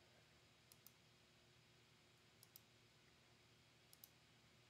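Three faint computer mouse clicks about a second and a half apart, each a quick double tick of the button pressing and releasing, over low steady room hiss.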